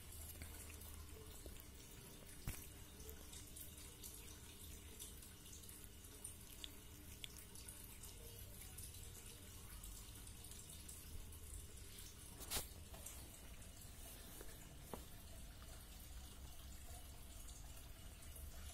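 Near silence: a faint low hum with scattered small clicks, and two sharper ticks, about two and a half seconds in and, loudest, about twelve and a half seconds in.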